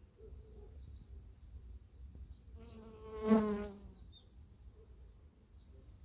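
Honeybee buzzing close past the microphone: a brief, loud wingbeat hum that swells about two and a half seconds in, peaks, and fades away within about a second and a half.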